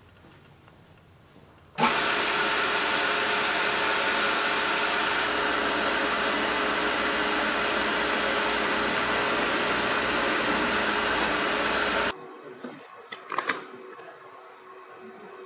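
Woodworking machine, a horizontal boring machine, running steadily for about ten seconds: a loud, even motor noise with a steady hum in it. It starts suddenly about two seconds in and cuts off suddenly, after which a few light knocks come as wooden pieces are set into a cardboard box.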